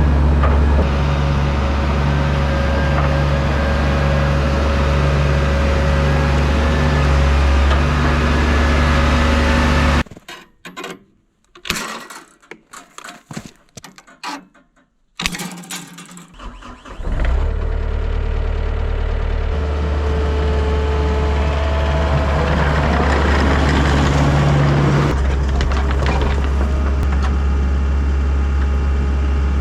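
Diesel engine of a Takeuchi TL10 compact track loader running steadily. About ten seconds in it drops away to quiet, scattered small sounds for about seven seconds, then the engine sound comes back steady.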